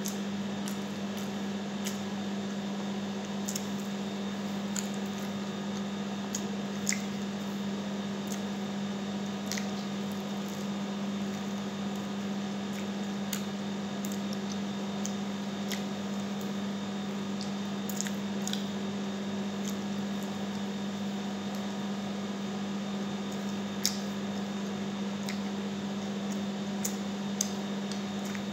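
Mukbang eating sounds: a person chewing sticky honey-garlic fried chicken and picking at it with the fingers, heard as scattered sharp clicks and smacks over a steady hum.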